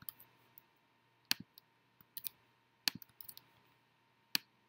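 Computer mouse and keyboard clicks while a password is pasted into two form fields: single sharp clicks spaced a second or more apart, with a few quicker ones in between.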